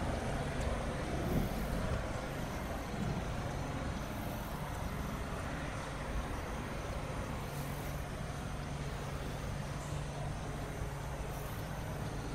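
Road traffic on an elevated highway: trucks and cars passing as a steady noise, with a low steady hum underneath.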